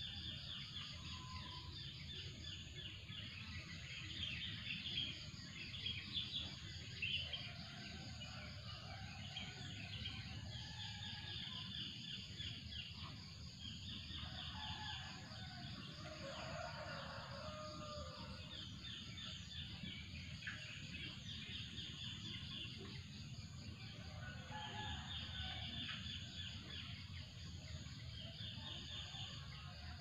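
Morning birdsong: several birds chirping in repeated short trills, over a steady high-pitched hum.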